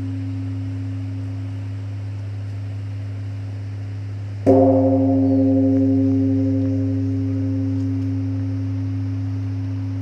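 Large Korean Buddhist temple bell (beomjong) with a low hum lingering from an earlier stroke. It is struck once about four and a half seconds in, with a sudden rise in level and several higher overtones. It then rings on in a long, slowly fading low hum.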